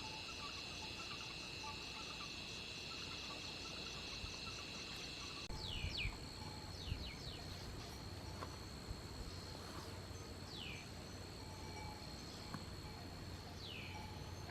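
Night insects trilling steadily in the forest. About five seconds in, the chorus changes abruptly to a single steady high note, and a few short falling chirps come over it.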